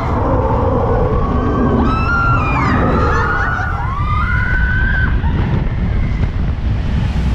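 Wind buffeting the camera microphone on a fast-moving theme-park ride, with riders' screams gliding up and down over it during the first few seconds.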